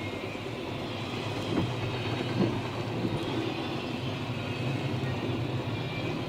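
Freight train rolling by: a steady low rumble of wheels on rail, with two short knocks about a second and a half and two and a half seconds in.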